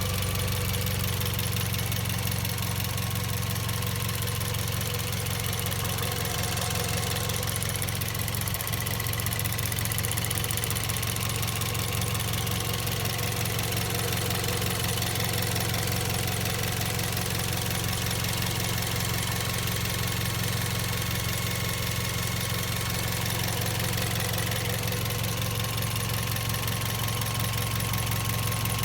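Second-generation Toyota Vios engine idling steadily, with a loud chirping coming from the engine bay.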